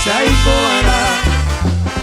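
Band playing a polka, with a singer over a steady, repeating bass line.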